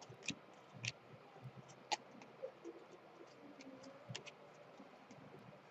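Faint scattered clicks and ticks from trading cards being handled and flipped through, a few sharp ones among lighter taps.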